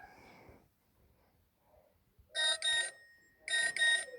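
Nokia 5500 Sport ringtone: two pairs of quick electronic beeps about a second apart, like a digital alarm clock. Before them, the tail of the previous rooster-crow tone fades out in the first half second.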